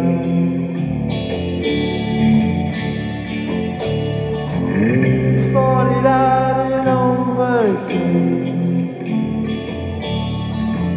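Rock band playing an instrumental passage: electric guitar lead over bass and drums. The guitar holds long notes that bend up and slide down, with one rising bend about five seconds in and a falling slide near eight seconds.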